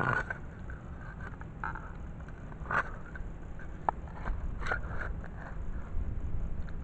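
Digging tool scraping and crunching into soil and grass roots in a small hole, in scattered short scrapes and clicks over a steady low rumble, with a clump of dirt lifted out near the end.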